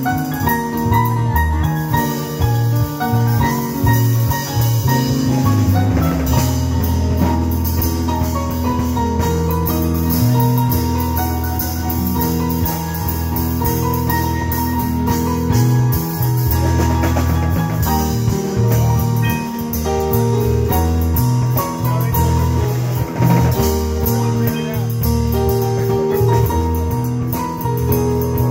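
Live jazz combo playing: drum kit with cymbals, a bass line, and keyboard.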